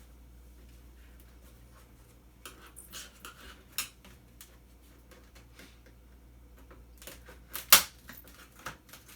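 Scattered clicks and clatter of small scrap electronic parts being handled and pried apart, busier near the end with one sharp loud click.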